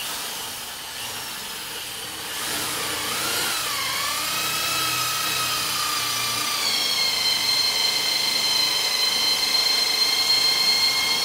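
Power drill driving a 1/4-inch self-tapping screw into a steel frame. The motor whine starts abruptly, wavers and dips in pitch for a few seconds, then holds steady at a higher pitch and stops near the end.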